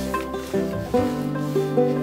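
Background music: an acoustic tune of plucked-string notes over a low bass line.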